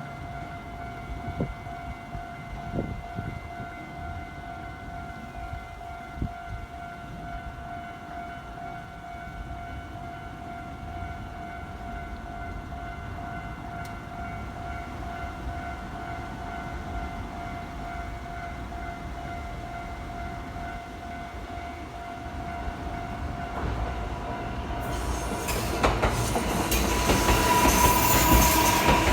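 Level-crossing warning alarm ringing steadily at a Japanese railway crossing. In the last few seconds a train comes up and passes over the crossing, its noise growing loud enough to drown the alarm.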